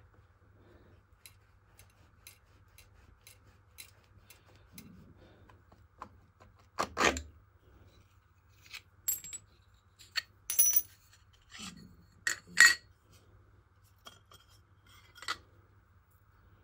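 Light clicks, metallic clinks and scraping as a freshly cut brass clock wheel is worked by hand off its backing plate and arbor on a milling machine's dividing head, with a few louder metal knocks in the middle.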